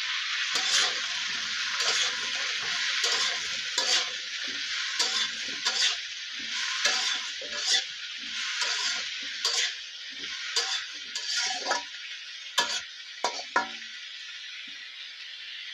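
Cauliflower florets sizzling in hot oil in a karai while a spatula stirs them, scraping and knocking against the pan at uneven intervals. The sizzle eases in the second half, and the knocks stop a couple of seconds before the end.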